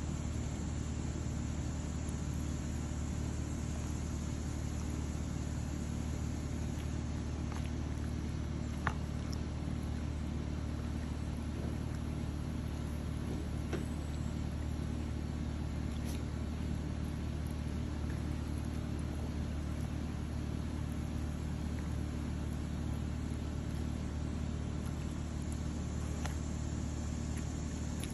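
A steady low mechanical hum, with a few faint clicks scattered through it, the clearest about nine seconds in.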